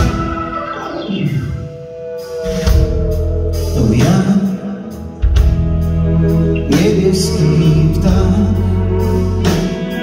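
Live blues band playing: electric guitars, bass, drum kit and keyboard, with a blues harmonica and a male voice singing.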